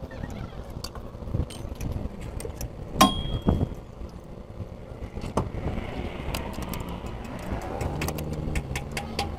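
Metal clinks and small knocks of hand tools and parts against a truck's front steering knuckle, with one sharp ringing clink about three seconds in. A low steady hum comes in near the end.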